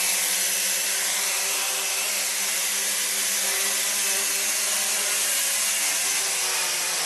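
WLtoys W100S quadcopter's motors and propellers whirring steadily at flying speed, a constant buzzing hum.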